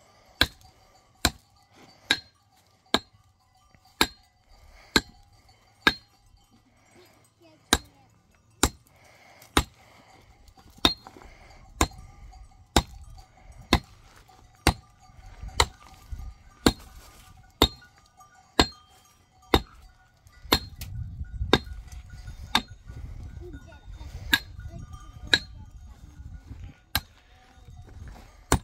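Hard striking blows at an even pace of about one a second, each a sharp knock with a short metallic ring. A low rumbling noise joins about two-thirds of the way in.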